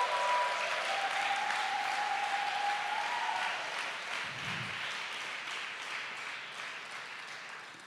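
Church congregation applauding, dying away toward the end.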